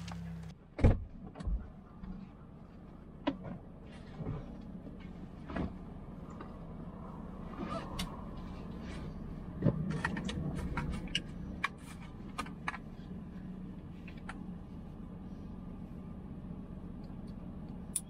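A vehicle's engine running steadily, with scattered clicks and knocks over it; the sharpest knock is about a second in.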